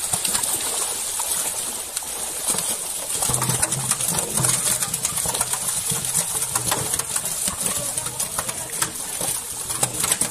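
Many fish thrashing in a seine net crowded in shallow pond water, a dense run of short slaps and splashes. A low steady hum joins in about three seconds in.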